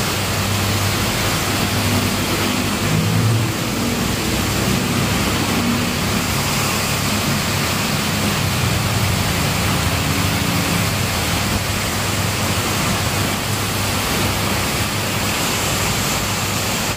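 Heavy rain pouring down steadily in a continuous hiss, with cars and a motorbike passing on the wet road.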